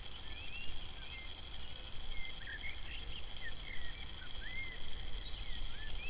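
Wild birds calling: many short, scattered whistled notes rising and falling in pitch, with no steady rhythm. Under them run a steady high tone and a low rumble.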